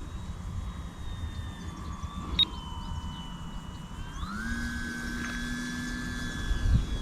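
Electric motor and propeller of a 3D-printed RC A6M2 Zero model in flight: a steady whine that dips slightly, then rises in pitch about four seconds in and holds before easing off near the end. Wind rumbles on the microphone underneath, and a single sharp click sounds about two and a half seconds in.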